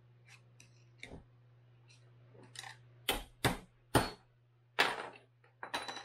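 Hand tools knocking on the crankcase of a 2012 Yamaha YZ250F engine that is being split apart. A few light metallic ticks come first, then about five sharp knocks in the last three seconds, over a faint steady low hum.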